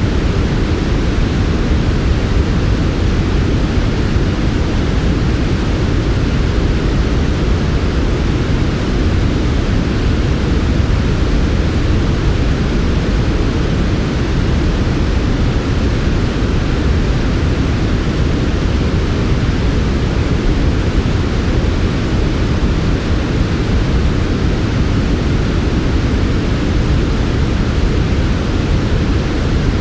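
Steady, unbroken synthetic noise for sleep, heaviest in the low range with a softer hiss above it; it does not change.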